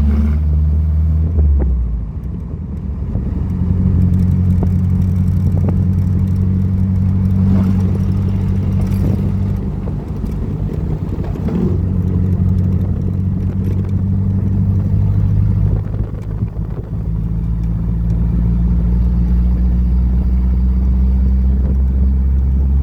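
Air-cooled VW flat-four engine running under way, a steady low drone whose note eases and shifts briefly a few times.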